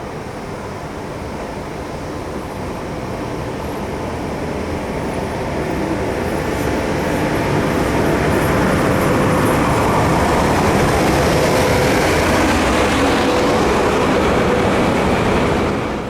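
ET42 electric locomotive running light, getting louder for about eight seconds as it comes close and then holding at full level with a steady hum.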